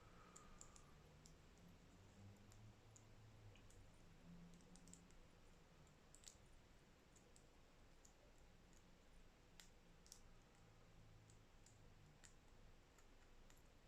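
Faint, irregular small metal clicks and scrapes of a lock pick being worked through the levers inside a padlock while a tension tool holds turning pressure; the lock has not yet opened.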